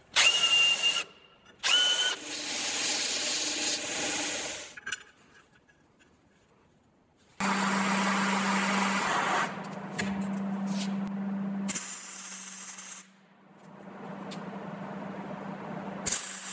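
Drill with a countersink bit cutting into steel flat bar in short runs, with a high squeal in the first two seconds. After a quiet gap, a blue-flame torch heats the steel studs, with a steady low hum under the shop noise and a hiss, and a short loud burst of welding near the end.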